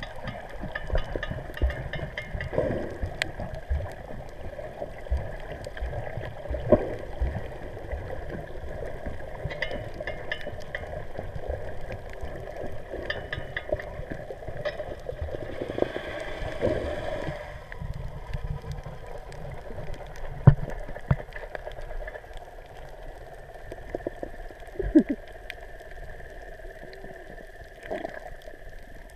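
Muffled underwater sound: water moving and gurgling, with many scattered short clicks and a louder rushing hiss about halfway through.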